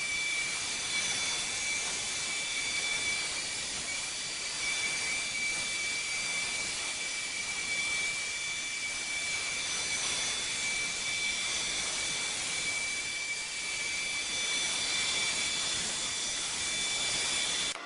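Neato XV-12 robotic vacuum cleaner running: a steady hiss of its suction fan with a high, steady whine over it. It stops abruptly near the end.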